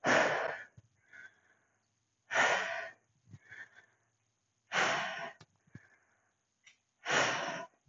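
A woman breathing hard in rhythm with kettlebell goblet squats: a loud, forceful breath about every two and a half seconds, four in all, with fainter breaths between them.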